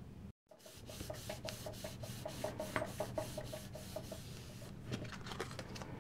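A hand rubbing quickly back and forth over paper, pressing a freshly glued corrugated cardstock panel down onto a card: a faint, even run of strokes, about six a second, lasting roughly three seconds.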